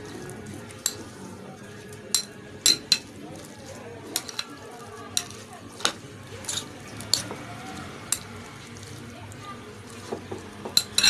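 Spoon stirring a wet chickpea-and-yogurt mixture in a glass bowl, with sharp clinks of the spoon against the glass every second or so and a quick run of clinks near the end.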